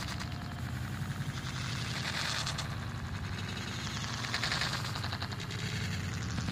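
Dense, continuous crackling rattle from a handheld phone's microphone during walking, with soft hissing scuffs of running shoes on gritty concrete swelling every couple of seconds.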